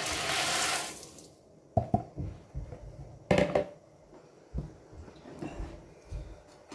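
Dry broken spaghetti poured from a bowl into a steel pot of boiling water, a rush of noise for about the first second, followed by a few light knocks and clinks.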